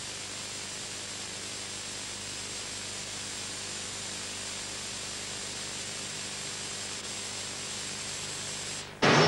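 Steady, even hiss with a faint low hum underneath. About nine seconds in it drops out and a much louder sound starts abruptly.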